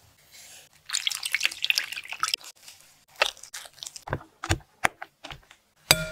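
Ingredients poured onto steamed taro slices in a ceramic dish with a fine crackling hiss, then a metal spoon mashing the taro, tapping and scraping against the dish in short strokes. Near the end a glass mixing bowl is set down with a knock and a brief ring.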